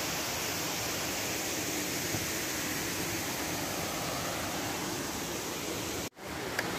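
Steady rushing of water at a waterfall and its pools, an even hiss that breaks off abruptly for a moment about six seconds in.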